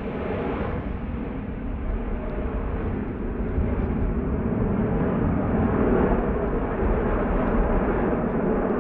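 Jet noise from a formation of T-50B Golden Eagle jets, each with a single turbofan, flying past: a steady rushing sound that grows slowly louder.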